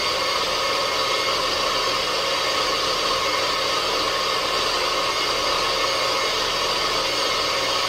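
Personal bullet-style blender motor running at full speed, blending frozen fruit, greens and water into a thick smoothie: a steady, unchanging whirring whine.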